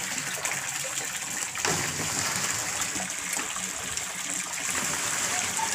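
Water gushing steadily from a pipe and splashing into a concrete fish tank, a continuous hiss. One short knock about a second and a half in.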